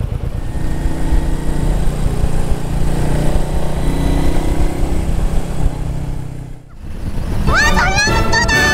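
Royal Enfield Meteor 350 single-cylinder engine running while riding, with wind on the microphone. Near the end, after a brief drop, a loud high tone rises and then holds for about a second and a half.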